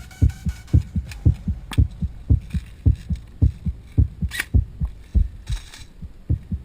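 Backing-track beat between verses: deep bass thumps in heartbeat-like pairs, about two pairs a second, with a couple of brief sharp clicks around the middle.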